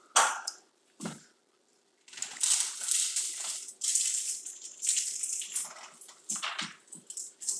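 Small metal blind-mounting brackets rattling and scraping as they are handled on a window sill. There are a couple of short clatters, a brief pause, then several seconds of rustling and clinking that breaks off now and then.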